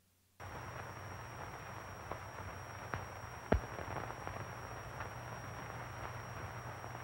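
Soundtrack of an old 1935 sound film starting about half a second in: a steady hiss with a low hum and a thin high whine, dotted with crackles and pops, the sharpest pop about halfway through.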